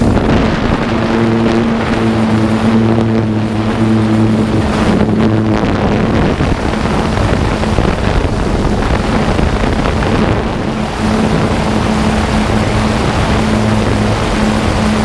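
DJI F550 hexacopter's motors and propellers humming steadily in flight, heard from its onboard camera, with wind rushing over the microphone.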